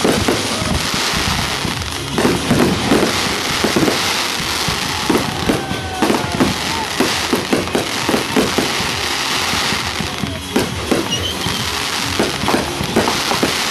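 Fireworks going off in quick succession: many booms one after another over continuous crackling.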